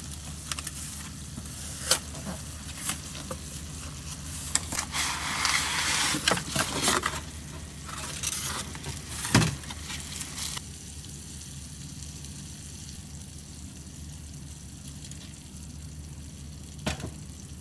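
Taco meat sizzling in a skillet over a gas burner, with cardboard and packaging rustling and knocks as a slow cooker is lifted out of its box. The handling is busiest about five to seven seconds in. The sizzling hiss drops away sharply about ten seconds in.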